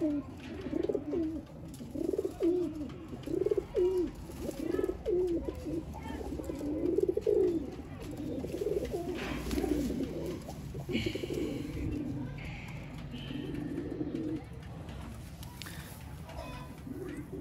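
Domestic pigeons cooing: a run of rising-and-falling coos about one a second, growing fainter in the second half.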